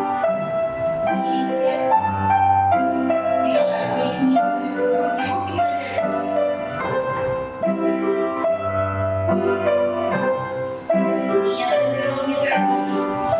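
Instrumental music for a dance-class barre exercise: a melody over repeated held bass notes.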